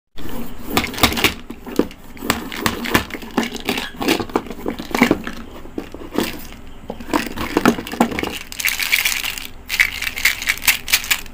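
Small plastic paint bottles handled by hand, clicking and knocking against each other and the table in quick irregular taps, with about a second of rustling near nine seconds in.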